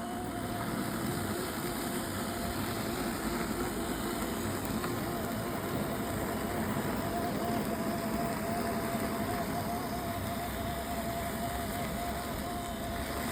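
Robotic lawn mower running, its motor giving a steady whine that wavers slightly in pitch over a low rumble.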